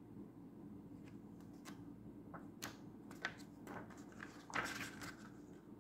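Faint rustling and a few soft taps of a book's pages being handled and turned by hand.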